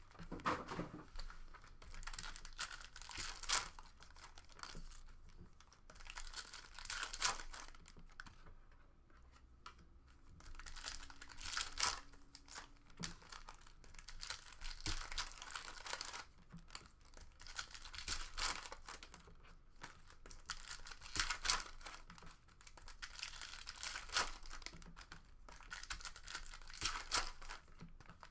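Trading card pack wrappers being torn open and crinkled by hand, in repeated rustling bursts a second or two apart.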